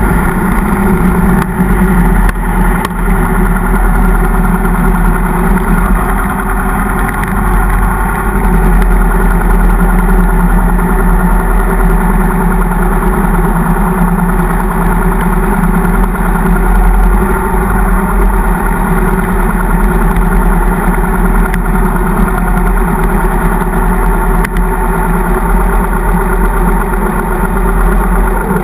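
Harley-Davidson motorcycle's V-twin engine running steadily at low speed as the bike slows from road speed to a crawl, near idle by the end.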